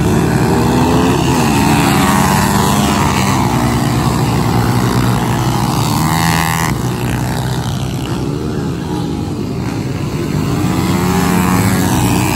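Several pit bike engines racing at once, revving up and down in overlapping rising and falling tones. One bike passes close and loud about six seconds in.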